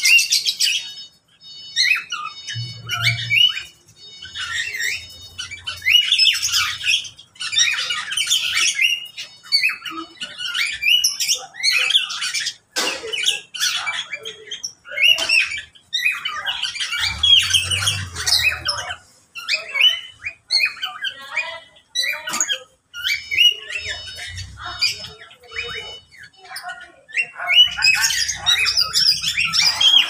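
A mixed aviary of cage birds, among them ring-necked parakeets, mynas and magpie-robins, squawking, chirping and whistling over one another in overlapping calls with short pauses.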